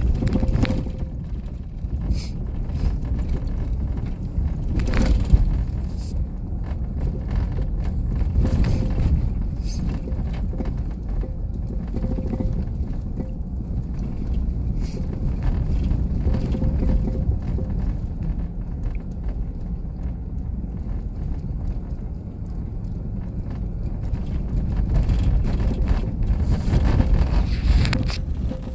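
Road noise heard inside a camper van driving on a bumpy sand-covered road: a steady low rumble from the tyres and body, broken by occasional knocks and rattles as the van goes over bumps.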